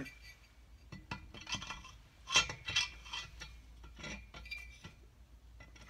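Light, irregular metallic clinks and scrapes as the twin-cylinder barrel block of a BSA Fury engine is eased down over the pistons, rings and guide studs, with the loudest knocks about two and a half to three seconds in.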